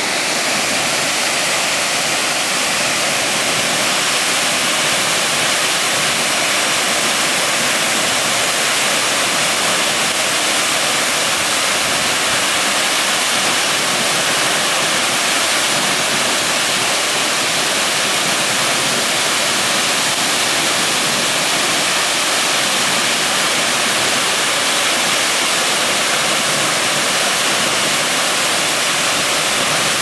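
Waterfall plunging down a rock face into its pool, a loud, steady, even rush of falling and splashing water.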